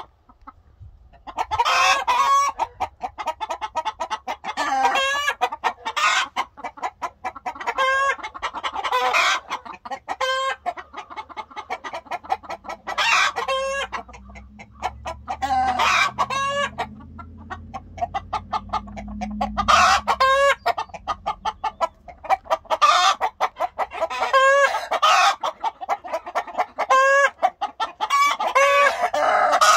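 A flock of hens and roosters clucking rapidly and noisily, with loud drawn-out calls every few seconds.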